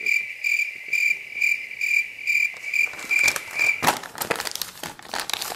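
Crickets chirping: a steady high trill pulsing about twice a second, which cuts off abruptly near four seconds in. Then the click and rustle of a folded paper drug leaflet being handled and refolded.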